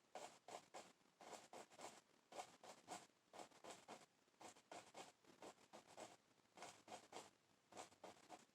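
Paint-loaded bristle brush tapping against a canvas, several quick light taps a second in short runs with brief pauses, laying in a tree with an oil painting brush.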